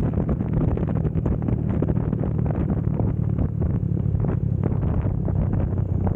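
Motorcycle engine running through a JVT V4 teardrop aftermarket exhaust pipe while riding at a steady pace, a fast even exhaust beat, recorded with an action camera's wind-reduction audio setting.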